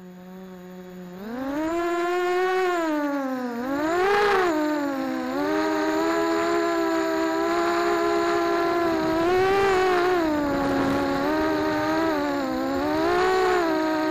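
FPV racing quadcopter's electric motors and propellers, heard from the onboard camera: a low steady hum at rest, then about a second in the throttle comes up and a whine rises in pitch. It keeps rising and falling with the throttle as the drone flies, with several sharper surges.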